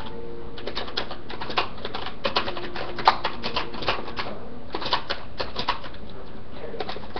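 Computer keyboard keys being typed, an irregular run of short clicks in quick clusters.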